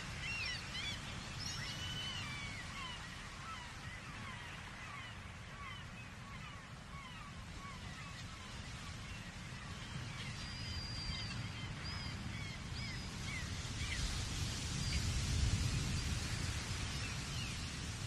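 Many seagulls calling over and over in overlapping short calls, thick at first, thinning in the middle, then busier again. Beneath them runs a low rumble of ocean surf that swells about three-quarters of the way through.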